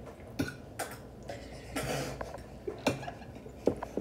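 Metal forks clicking and scraping against plastic takeout containers while eating: several short sharp clicks spread through, with a brief rustle about two seconds in.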